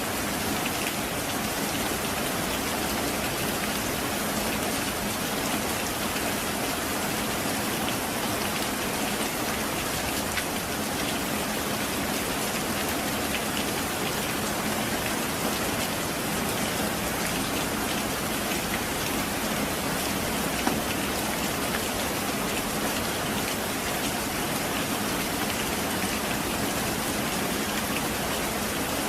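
Heavy rain falling steadily, a dense, even hiss of countless drops with no let-up.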